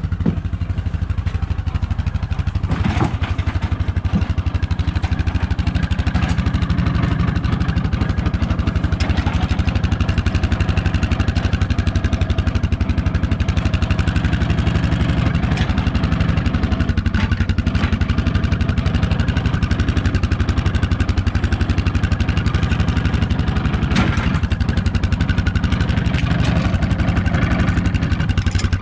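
An engine idling steadily, with a couple of sharp metal knocks about three seconds in and near the end.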